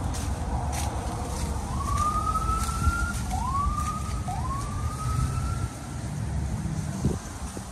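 Footsteps crunching on dry reed litter over a low rumble, while a distant siren wails, its pitch sweeping up three times.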